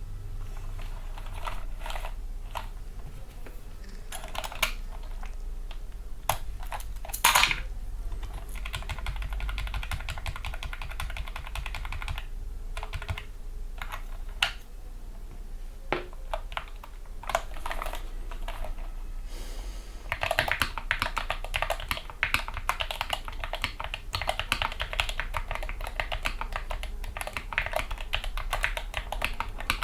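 Typing on a Gamakay MK61 mechanical keyboard with lubricated Gateron Yellow optical switches and foam dampening. Scattered single key presses and short runs at first, then fast continuous typing from about two-thirds of the way in.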